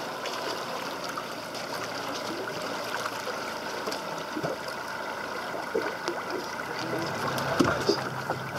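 Sea water rushing and splashing steadily along the side of the boat, with small scattered splashes; a low hum joins about seven seconds in.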